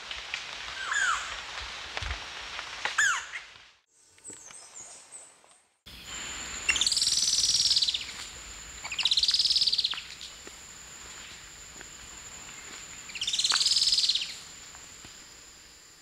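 Olivaceous woodcreeper singing: three trills, each a fast run of high notes that rises and then falls, the last after a longer pause, over a steady high whine. In the first few seconds there are a couple of short, falling bird calls.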